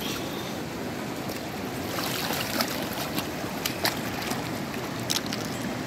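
Shallow river running over stones, a steady rushing of water. A few short sharp splashes or clicks come through in the second half as a child wades in it.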